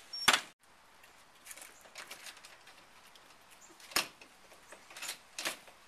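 A wooden backyard gate bangs shut once, sharp and loud, and the sound cuts off abruptly. A few light footsteps and small knocks follow later.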